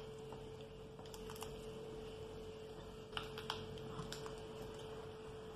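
Raw chicken being rolled up by hand on a glass tray: a few soft wet squishes and light clicks, loudest about three seconds in, over a steady electrical hum.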